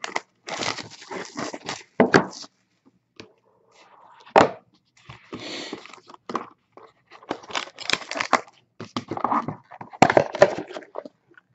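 Plastic shrink wrap being torn and peeled off a sealed trading-card box, crinkling and crackling in irregular bursts, with a few sharp crackles and short pauses.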